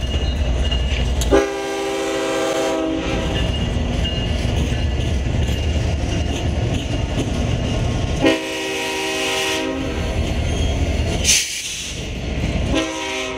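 Long freight train rolling past with a steady low rumble and wheel clatter. A multi-chime locomotive horn sounds three times: two long blasts about seven seconds apart, and a third starting near the end. A brief sharp high-pitched noise comes about eleven seconds in.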